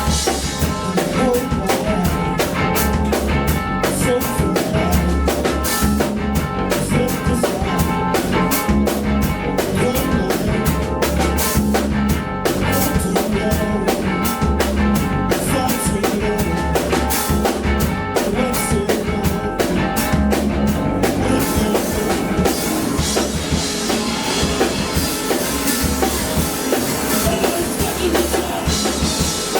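Live band playing an instrumental rock song with a drum kit and guitar: steady drum beat under sustained guitar chords. The drum strokes thin out about 21 seconds in while the guitar carries on.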